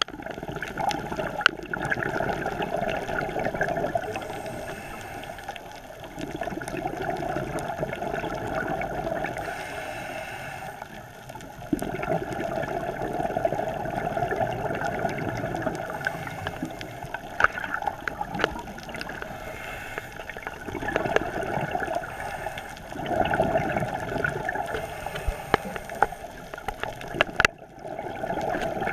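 Scuba regulator breathing heard underwater: bursts of exhaled bubbles gurgling up in surges a few seconds apart, with scattered faint clicks.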